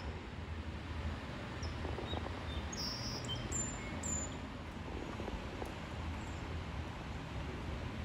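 Steady outdoor background noise with a low hum. A few brief, high bird chirps come between about two and four seconds in.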